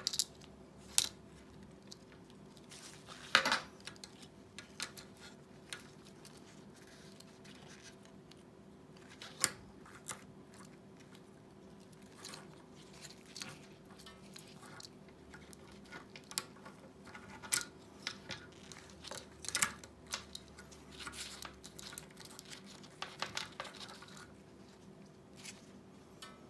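Hands working on a headset with small tools and parts: scattered sharp clicks, snips and short rustles at irregular intervals, the loudest about a second in and again around three and a half seconds in.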